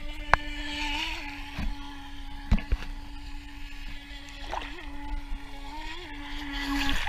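Battery-powered RC speedboat's electric motor whining steadily at speed, its pitch bumping up briefly a few times as the throttle changes, with a hiss of spray as the hull skims the water. A couple of sharp clicks stand out.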